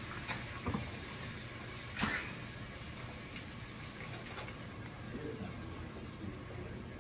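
Canned tomatoes poured from the can into a cooking pot: a soft wet pouring, with a few light clicks and knocks of the can, the strongest about two seconds in.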